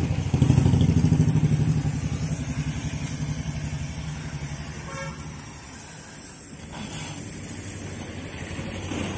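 TVS Apache 200 motorcycle's single-cylinder engine running just after starting, pulsing evenly through a silencer that has a sound problem. It is loud at first and eases down over several seconds toward a steadier idle, with a brief higher tone about five seconds in.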